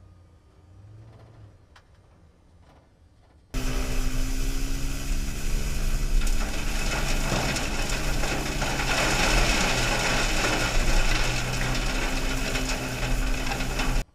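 Victory Sweepers E600 battery-powered tow-behind sweeper at work on asphalt: its rotating brushes scrub the pavement and sweep up debris, with a steady hum under a loud hiss of bristles and rolling wheels. After a few faint seconds it starts abruptly, and it cuts off suddenly just before the end.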